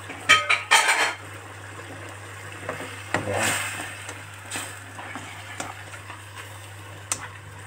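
Spatula stirring shredded chicken through simmering tomato sauce in a wok: a few loud scrapes and knocks against the pan in the first second, then softer stirring with sizzling and light taps.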